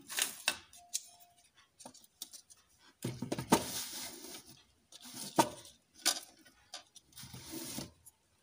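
Knocks, clatter and scraping from a wooden block and hand tools being set down and moved about on a tabletop, in several short bursts, the biggest about three seconds in.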